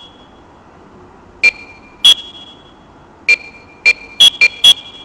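Talking alarm clock giving seven short electronic beeps at two different pitches, spaced irregularly and bunching closer together near the end.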